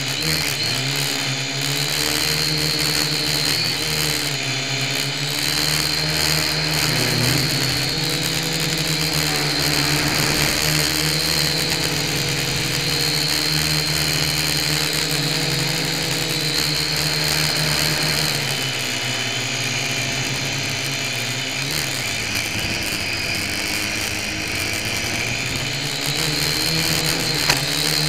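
Syma X1 quadcopter's small geared motors and propellers whirring in flight, picked up close by a camera mounted on the craft. The pitch keeps wavering up and down as the motor speeds change. A single sharp click near the end.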